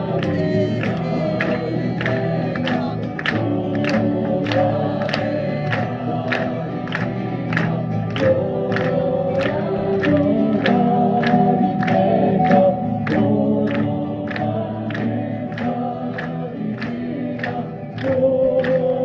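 Choir of men and women singing together to acoustic guitar accompaniment, with hand-clapping in time, about two claps a second.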